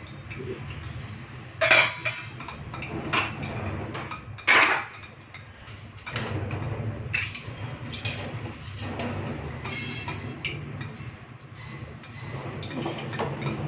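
Stainless-steel plates and utensils clanking against each other and the steel counter, with two loud clanks about two and four and a half seconds in and lighter clinks between, over a steady low rumble.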